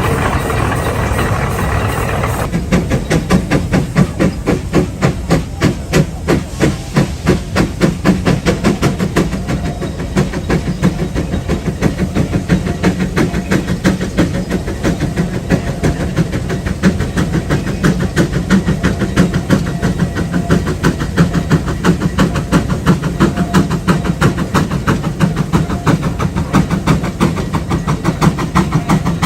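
Steam traction engine running, with a steady, even rhythm of exhaust beats and the hiss of steam. A different sound, cut off abruptly, fills the first couple of seconds.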